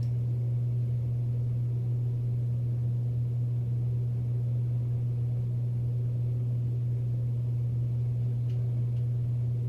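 A steady low hum with nothing else over it.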